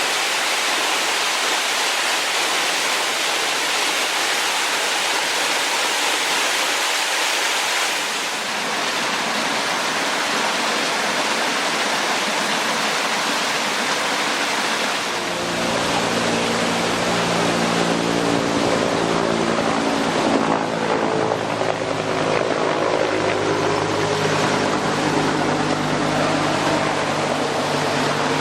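Mountain stream water rushing steadily over rocks. About halfway through, the sound changes to a deeper, fuller rush with a steady low hum in it.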